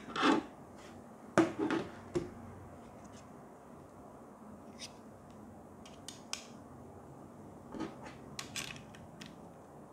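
Handling of a Uneed multiple-connector phone stand and a smartphone on a tabletop: a sharp plastic knock just after the start and a quick cluster of knocks and clicks about a second and a half in, then scattered lighter clicks and taps.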